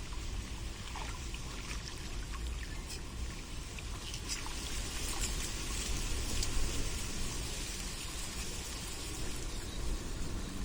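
Water trickling and dripping: a steady hiss with small, drip-like ticks scattered through it.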